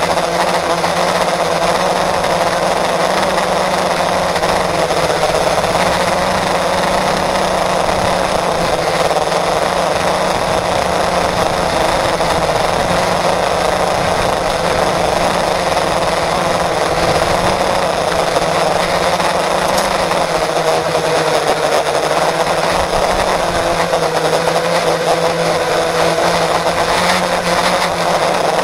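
FPV quadcopter's brushless motors and propellers running with a steady whine, heard up close through the onboard action camera's microphone. The pitch wavers slightly with throttle.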